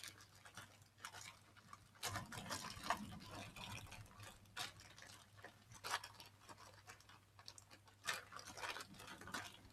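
Faint handling noises of plastic packaging and small kit pieces: scattered light clicks and rustles as someone tries to get a package open.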